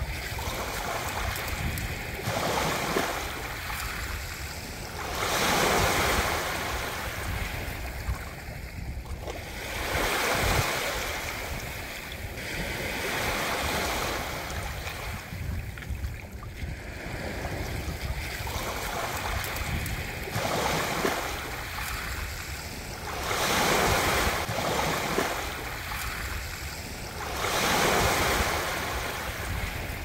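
Ocean surf: waves breaking and washing up the shore in swells every three to five seconds over a steady low rumble.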